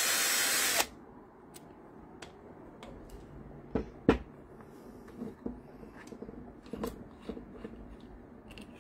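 Jar-Owl 21V cordless drill running briefly, cutting off suddenly just under a second in. Then come scattered clicks and knocks of hands turning and handling its keyless chuck, the sharpest about four seconds in.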